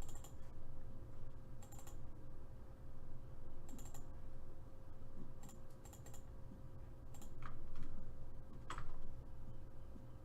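Scattered clicks at a computer keyboard and mouse, about seven over ten seconds, over a steady low electrical hum.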